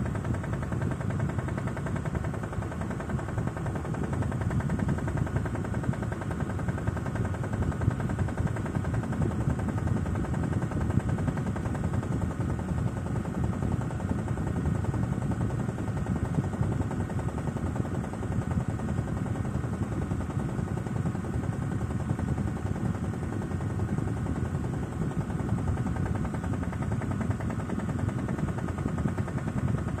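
Modified Miele toy washing machine running: its small electric motor hums steadily under a continuous fast, irregular rattle from the drive and drum.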